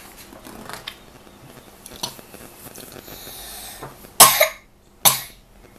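A young boy coughing twice into his elbow: two harsh coughs a little under a second apart, the first the louder.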